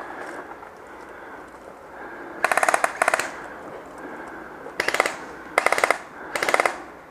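Airsoft gun firing several short full-auto bursts of rapid clicking shots, the first a little over two seconds in and three more close together near the end.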